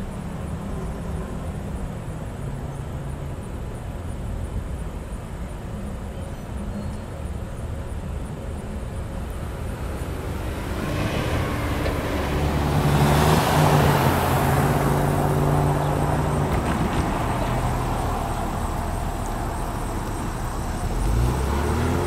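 Road traffic at a railroad grade crossing: a car passes about halfway through, its tyre and engine noise swelling and then fading, over a steady traffic hum.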